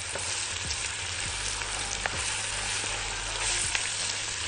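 Chopped onions sizzling steadily in hot oil in a large metal pot, stirred with a wooden spoon that gives a few faint scrapes; the onions are sautéing and nearly golden.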